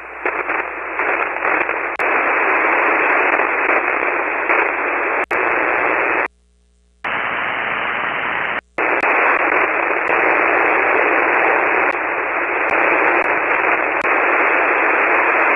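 Steady hiss of band noise from an HF transceiver's speaker, receiving an empty 40-metre SSB channel, with a few faint clicks of static. The receiver audio cuts out completely for under a second about six seconds in, and again very briefly near nine seconds.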